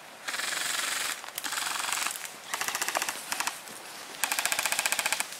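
Airsoft electric guns (AEGs) firing four full-auto bursts of rapid clicking shots, each about a second long, with short pauses between them.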